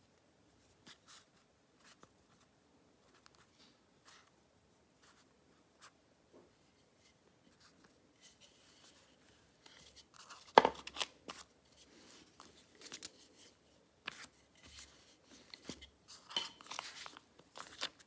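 Hands working soft clay on a sheet of paper: faint light clicks at first, then from about halfway louder, irregular pressing, rustling and tearing noises as the clay is flattened and its edge lifted from the paper. The sharpest click comes a little past the middle.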